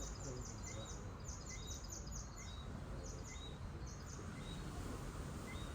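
Steady wash of gentle surf at the shore, under a chorus of short high chirps that come in quick runs of several a second, with fainter repeated notes lower down.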